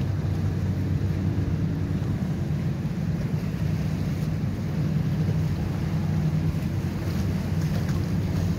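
Steady drone of many motorboat engines running together out on the lake, with wind on the microphone and choppy water.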